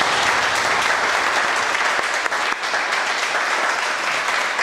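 Audience applauding: a steady round of clapping from a roomful of people.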